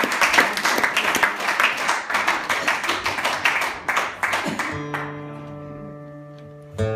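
Audience applause dying away over the first four seconds or so, then a chord on an acoustic guitar strummed once and left to ring, with a second strum near the end.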